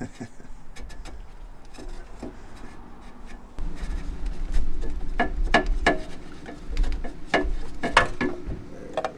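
Oil filter housing being unscrewed by a gloved hand under the car: rubbing and scraping as it turns, getting louder about three and a half seconds in with a low rumble and a run of sharp clicks and knocks as it works loose.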